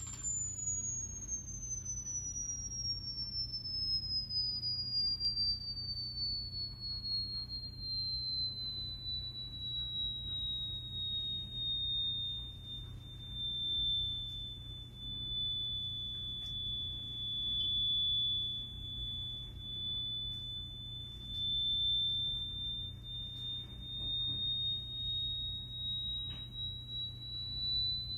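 A single pure, high electronic tone slowly gliding down in pitch for about half the time, then holding and creeping back up a little near the end, over a steady low hum.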